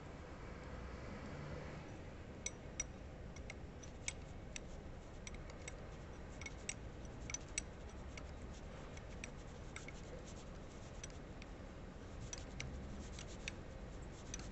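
Wrench turning a brass reusable hose fitting onto a rubber hose, with faint, irregular small metallic clicks of steel against brass, starting about two seconds in.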